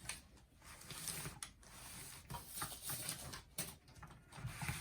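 Scattered sharp clicks and light knocks of small plastic parts being handled and unclipped inside a mini cassette boombox.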